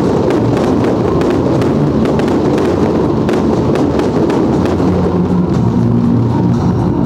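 Fireworks going off, a string of sharp bangs and crackles, mixed with music.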